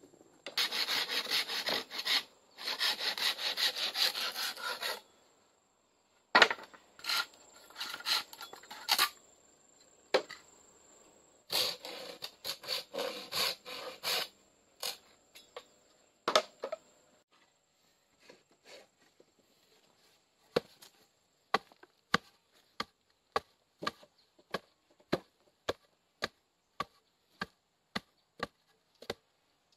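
Wood being sawn by hand in three bursts of quick back-and-forth strokes. Then, from about twenty seconds in, sharp chopping blows into wood at a steady two or so a second.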